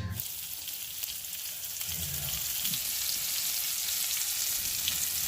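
Walleye frying in hot oil in a pan: a steady sizzle with fine crackling.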